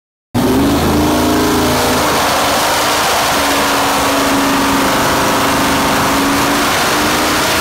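Chevrolet ZZ454 big-block V8 crate engine, naturally aspirated with a four-barrel carburettor and an Extreme Marine camshaft, running loud on an engine dynamometer. It cuts in suddenly a moment in and holds steady.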